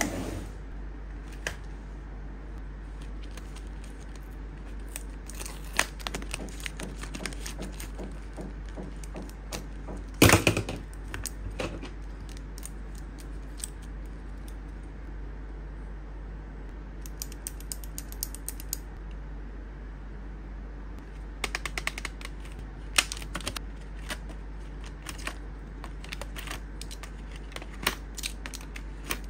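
Plastic pens clicking and clattering against each other and against a clear acrylic organizer as they are handled and slotted in by hand. Scattered sharp clicks come in bunches, with a louder clatter about ten seconds in, over a steady low hum.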